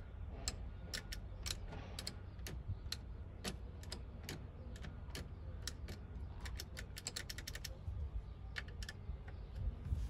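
Irregular light clicks and taps, several a second, from a screwdriver and plastic trim being handled around a car's exposed steering column, over a steady low rumble.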